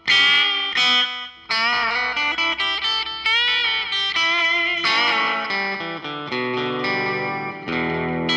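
Electric guitar, a Fender Telecaster through a Fender Blues Junior valve amp, playing a lead phrase of picked notes with string bends. It runs through the Coldcraft EchoVerberator set for slapback delay only, with the reverb off.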